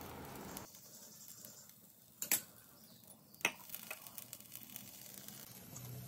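Two light taps or clicks about a second apart, from a steel spoon and fingers spreading chopped capsicum over batter on a non-stick tava, against faint room hiss.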